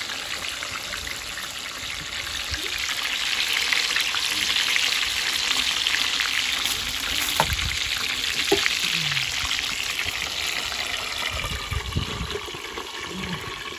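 Chicken pieces deep-frying in hot oil in a frying pan, a steady loud sizzle, with a couple of sharp clicks of tongs on the pan as the pieces are turned around the middle. The sizzle grows quieter near the end as the lid goes on the pan.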